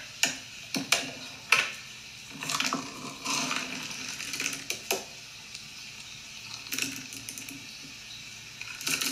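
Plastic dog-food containers being handled, with a few sharp clicks and knocks about a second in and again near the end, and a stretch of rustling from dry kibble shifting in the bin.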